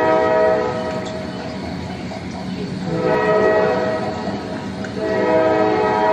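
Train horn sounding in long blasts. One blast ends about half a second in, a second runs from about three seconds to nearly five, and a third starts just after five, all over a steady rolling train rumble.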